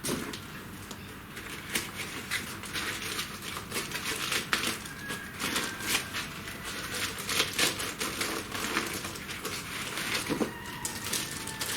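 Packaging being unwrapped by hand: plastic crinkling and rustling, with many small irregular clicks and knocks.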